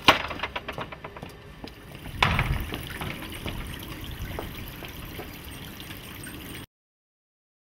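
Footsteps and light clicks and knocks, with a louder thump about two seconds in. After that comes a steady hiss with scattered faint taps, which cuts off abruptly near the end.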